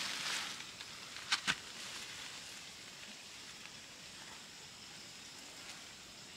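Rustling of leafy plant cuttings and a cloth sack being handled, with two sharp clicks about a second and a half in.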